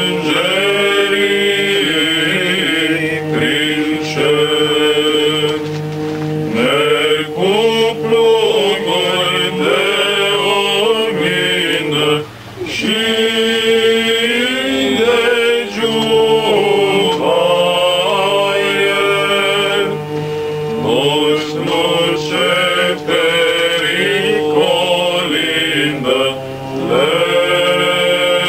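Six-man male vocal group singing a Romanian Christmas carol (colind) a cappella in a slow, ornamented chant style: a winding melody over a steady held note, with a short break for breath about twelve seconds in.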